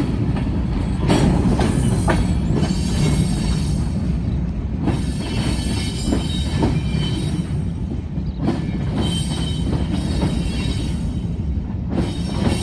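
Loaded covered hopper freight cars rolling past with a steady low rumble, their wheels clacking over rail joints now and then. A faint high wheel squeal comes and goes.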